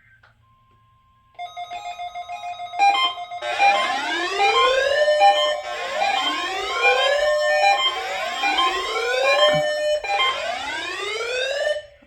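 Weather alert radios sounding their alarms for a weekly NOAA Weather Radio test. A pulsing beep starts about a second and a half in, then gives way to a rising whooping siren that repeats four times, about one whoop every two seconds, with several alarms overlapping, and cuts off abruptly just before the end.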